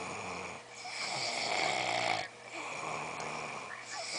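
A drunk person snoring in long noisy breaths, about one every second and a half.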